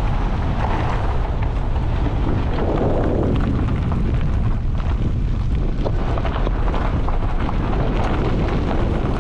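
Heavy wind buffeting a motorcycle-mounted action camera's microphone while riding, a steady loud rumble with a small 125 cc bike's engine buried underneath.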